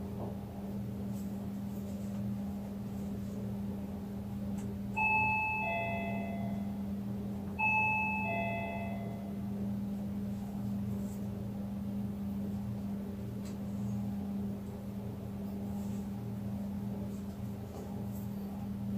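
Two-tone ding-dong chime of a doorbell, sounding twice about three seconds apart, each a higher note followed by a lower one, over a steady low hum.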